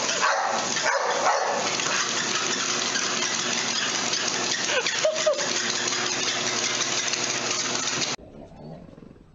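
A dog gives a short whine about five seconds in over a loud, steady rushing noise. The noise cuts off suddenly near the end.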